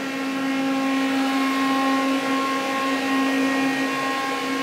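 Mori Seiki CL-153M CNC lathe running with its live tool spinning: a steady, even machine hum with a clear pitched whine, very quiet for the machine.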